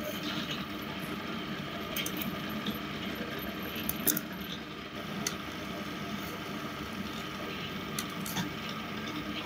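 Drill press running steadily as a twist bit bores through a black plate, throwing off curled swarf. A few sharp clicks stand out, the loudest about four seconds in.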